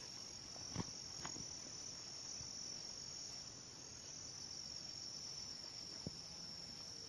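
A faint insect trill: one steady, high-pitched chirring tone that runs on unbroken, with a few soft clicks now and then.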